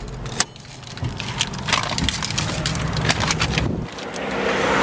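A string of sharp clicks and knocks from someone handling a car key and climbing out through the driver's door, over a low steady hum. Near the end a rising rush of noise takes over.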